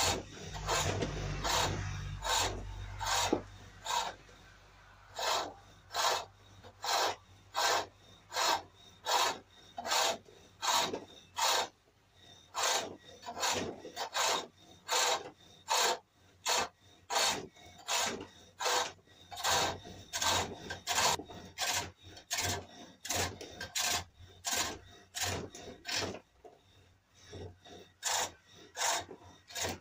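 Hook tool cutting cherrywood on a foot-powered pole lathe as the bowl's foot is shaped: a short rasping cut with each treadle stroke, repeating about one and a half times a second.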